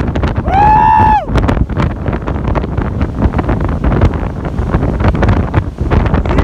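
Strong, gusty wind buffeting the microphone: a heavy low rumble with constant crackle. About half a second in there is a short high-pitched tone that holds for under a second and then falls away.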